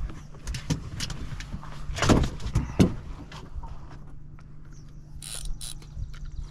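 Fishing reel clicking and whirring while a fish is played, with knocks and thumps in a john boat. The loudest thumps come about two and three seconds in, over a steady low hum.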